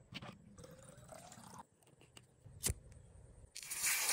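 Water jetting out of a hole punched in a plastic water bottle with a screwdriver, a loud hiss near the end, after a sharp click and quieter handling of the bottle.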